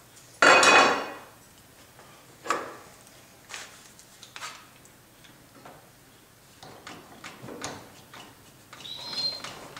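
Handling noise from clamping a wooden frame joint: a loud clatter about half a second in, then scattered clicks and knocks as a one-handed trigger bar clamp is set on the joint and squeezed tight, with a brief squeak near the end.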